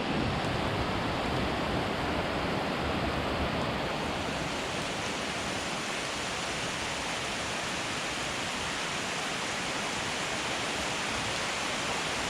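Rain falling in a steady downpour.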